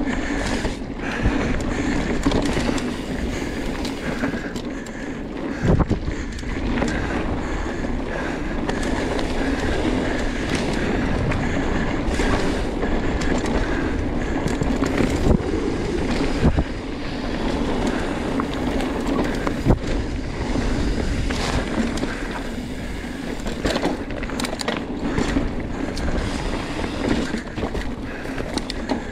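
Mountain bike rolling along a dirt forest trail: a continuous tyre rumble with the bike rattling over the ground, and sharp knocks over bumps now and then.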